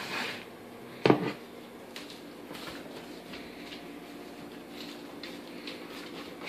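A plate clunks sharply against a kitchen countertop about a second in as it is picked up, just after a brief rustle. Faint light clicks follow over a low steady hum.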